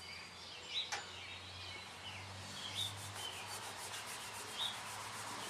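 Paper towel rubbing quietly over the chrome wire spokes of a wheel cover, polishing it after a spray of cleaner, with repeated wiping strokes.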